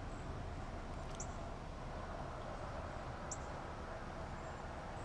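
Steady quiet outdoor background noise, with four or five short, high-pitched chirps spread through it.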